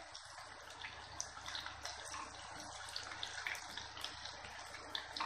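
Battered chicken pakoda pieces deep-frying in hot oil in a kadai, a steady sizzle with fine crackling. They are nearly done, well browned.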